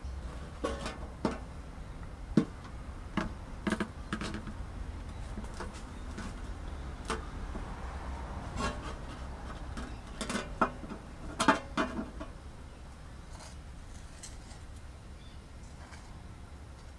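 Irregular clicks and light crackles from a heated knife blade pressed down through a plastic credit card against a steel surface, the loudest snaps about two seconds in and near eleven and a half seconds, settling down for the last few seconds. A low steady hum runs underneath.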